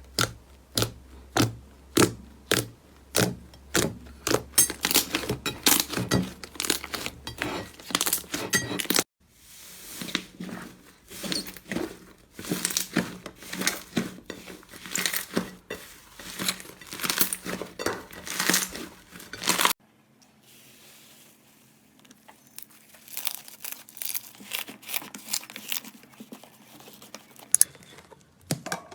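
Slime being squeezed and stretched by hand, giving rapid sticky clicks and crackling pops. The sound changes abruptly about 9 and 20 seconds in, as separate clips follow one another, and the last one is quieter.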